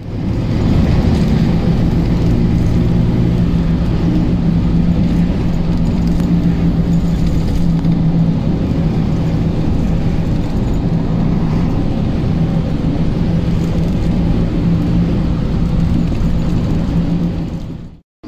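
Steady engine hum and road noise from inside a moving vehicle, cutting off abruptly near the end.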